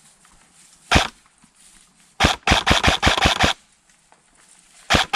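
Airsoft replica shots: a single sharp crack about a second in, then a rapid string of about nine shots at roughly seven a second, and another fast string starting near the end.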